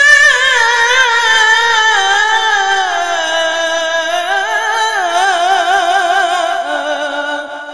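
A male qari's high voice in melodic Qur'an recitation (tilawah), holding the drawn-out final word "wa nisā'" as one long ornamented phrase. The pitch wavers quickly and slowly falls, then fades out near the end.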